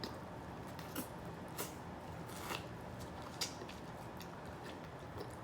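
Close-up eating sounds from a seafood meal: faint chewing and handling of food, with a few short sharp clicks and crackles spaced about a second apart over a low steady hum.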